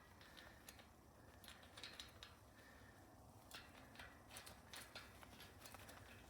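Near silence with faint, irregular metal clicks: a small steel cassette sprocket and its threads being handled as the screw-on top sprocket of a Shimano Uniglide cassette is started onto its thread.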